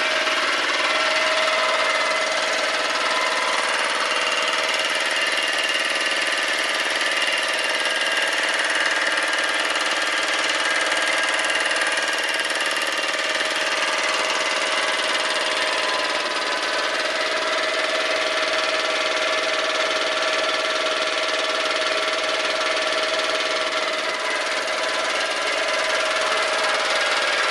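Belt-driven two-cylinder piston air compressor running steadily, its pump turned by a 1.5 kW three-phase electric motor; the sound holds an even pitch and level with no stops or changes.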